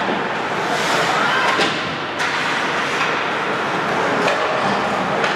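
Ice hockey game in an arena: a steady hiss of rink and crowd noise, broken by about four sharp knocks from play on the ice.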